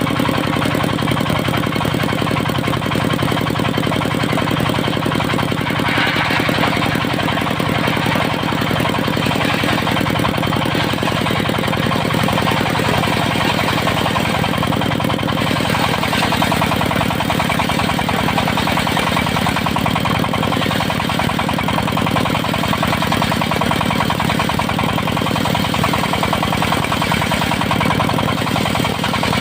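Stationary engine of a portable circular sawmill running steadily with a fast, even knock. A brighter rasping noise rises briefly about six seconds in and again around fifteen seconds in.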